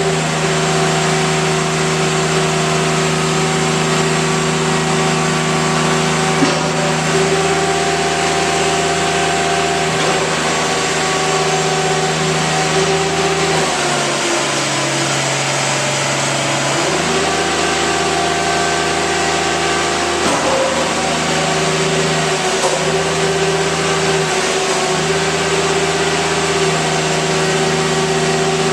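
Kubota diesel engine of a Bobcat X320 mini excavator running steadily. Its note drops for a few seconds about halfway through and dips briefly a couple more times later.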